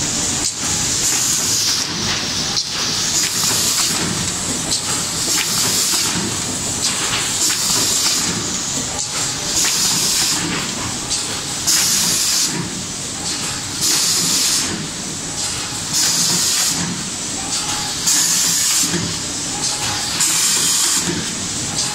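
Automatic rigid box making line running: a steady mechanical clatter with short hissing bursts roughly every second or two, typical of pneumatic cylinders venting air as the machine cycles.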